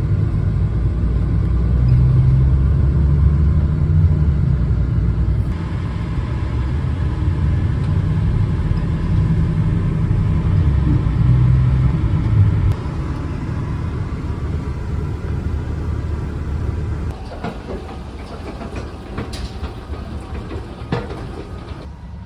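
Steady low rumble of a vehicle on the move, stepping down in level twice in the second half, with a few faint clicks near the end.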